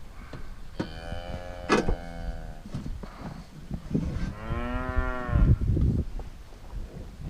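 Cattle mooing twice: a first moo at a steady pitch, then a second longer moo whose pitch rises and falls, with a few light knocks in between.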